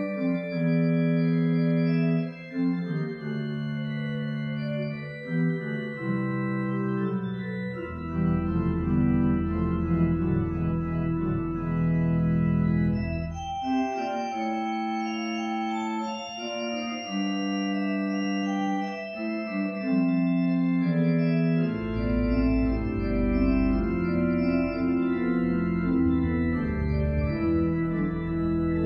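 Church organ playing slow, sustained chords that change every second or two. Deep pedal bass notes come in about eight seconds in, drop out near fourteen seconds, and return from about twenty-two seconds.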